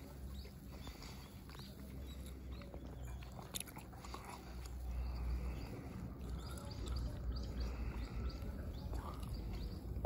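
Faint outdoor ambience: a steady low rumble with scattered small clicks, a sharper click about three and a half seconds in, and brief faint high chirps of small birds.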